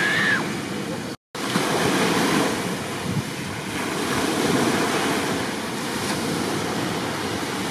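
Ocean surf with wind buffeting the microphone: a steady wash of waves, broken by a brief dropout about a second in.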